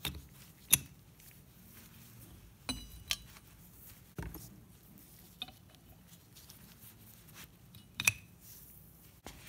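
A few sharp clicks and metal clinks from handling steel and bronze hydraulic-cylinder parts, as split rings and a seal gland are worked onto a steel ram. One clink about three seconds in rings briefly.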